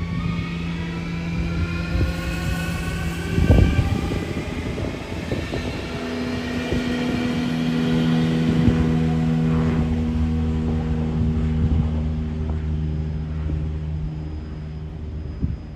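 A train moving through the station: a rising whine in the first few seconds, a loud knock about three and a half seconds in, then a steady hum.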